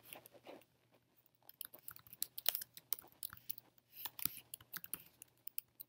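Typing on a computer keyboard: an irregular run of quick, light key clicks, starting about a second and a half in.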